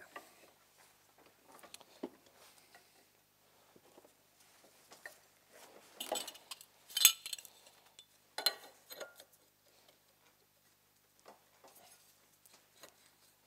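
Metal parts of a Ski-Doo Elan rear axle assembly clinking and knocking as they are handled and fitted together at a bench vise. Scattered light clinks, with a cluster of louder clanks about six to nine seconds in.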